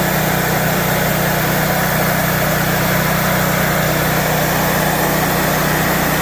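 Wood-Mizer bandsaw mill running steadily at full speed, its engine held at a constant high speed while the band blade saws through a cant.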